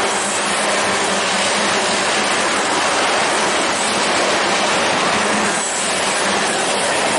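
Freight train of tank cars rolling past close by: a loud, steady noise of steel wheels on the rails.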